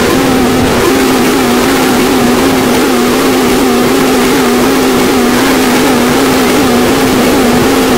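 Harsh noise music: a loud, unbroken wall of distorted hiss over a low drone that wobbles slightly in pitch.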